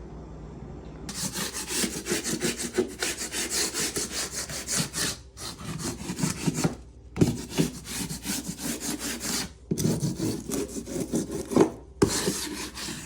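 A hand tool worked back and forth against a board in quick, even strokes, several a second, like hand sawing or rasping drywall or plywood. It starts about a second in and runs in several stretches with short breaks between them.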